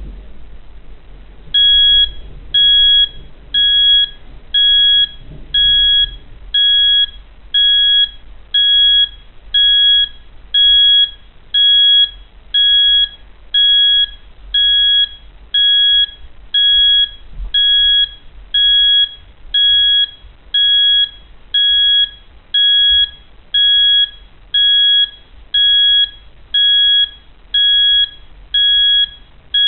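Nixie-tube alarm clock's buzzer sounding the alarm: short, high, even beeps about once a second, starting about a second and a half in.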